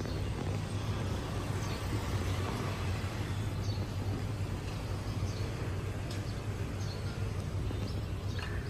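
Steady road traffic heard from above the street: a continuous low engine rumble with a haze of tyre and street noise, and a few faint short high chirps scattered through.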